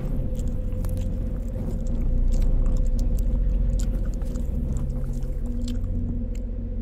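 Wet chewing and biting sounds, many small squelches and clicks, over a steady low rumble with a hum.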